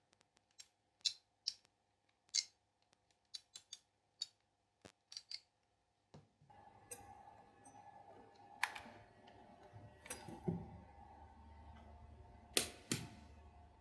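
A run of sharp clicks and taps as the hair trimmer and its charging plug are handled; from about six seconds in, a faint steady hum sets in, broken by a few louder clicks.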